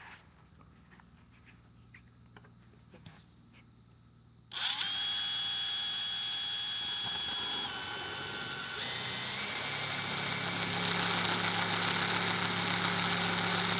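A handheld electric drill starts about a third of the way in, running a countersink bit into a steel plate with a steady whine that shifts pitch a couple of times. The bit is chattering a little in the steel, but not badly. Before the drill starts there are only a few light handling clicks.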